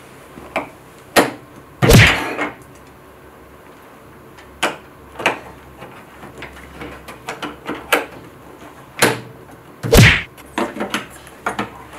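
Plastic GraviTrax marble-run pieces clicking and knocking as they are fitted onto the base plates and set down on the table. The clicks come at irregular intervals, with two heavier thuds, one about two seconds in and one near the end.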